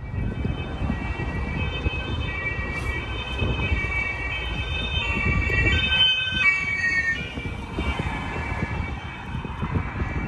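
Two-tone emergency vehicle siren alternating between two pitches over steady road traffic rumble; about seven seconds in its pitch dips and it fades away.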